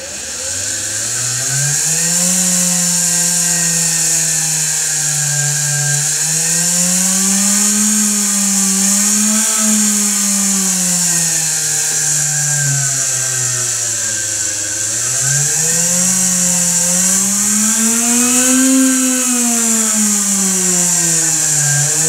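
Small reed-switched pulse motor (mini window motor) spinning up and running with a buzzing hum. Its pitch rises and falls several times as the rotor speeds up and slows down, over a steady high hiss.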